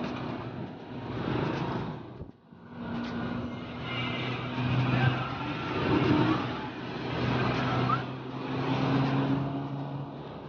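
A vehicle engine running steadily on the move, a low drone over road noise, with motorbike traffic around it. The sound drops out briefly a little over two seconds in.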